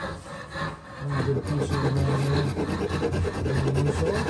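Hand file or rasp scraping across the end of a round wooden mallet handle clamped in a vise, in repeated strokes that grow louder from about a second in.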